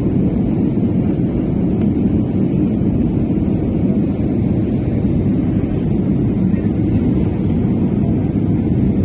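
Steady low roar of an airliner's engines and airflow, heard from inside the passenger cabin during the descent to landing.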